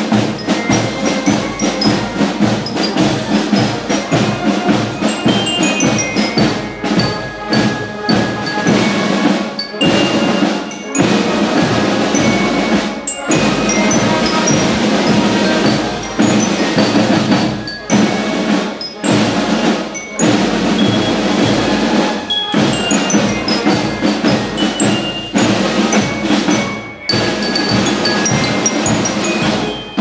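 Marching band playing a march outdoors, led by a bell lyre (glockenspiel) with quick descending runs of high notes, over snare drums and the band.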